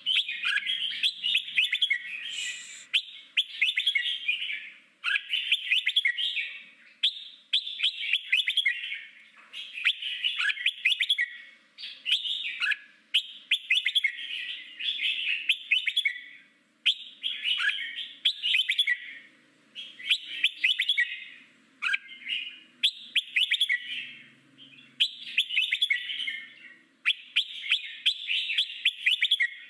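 Red-whiskered bulbul singing a long series of short warbled phrases, about one a second with brief pauses between them. Each phrase opens with a quick hooked note.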